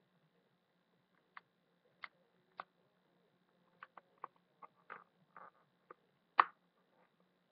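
A dozen or so small, sharp clicks and taps at irregular intervals, with one louder click about six seconds in, over a faint steady low hum.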